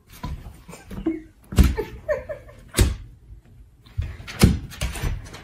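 Loud thumps and knocks from a kitten and a German Shepherd play-fighting on a wooden floor, with a few short vocal sounds between the knocks in the first half.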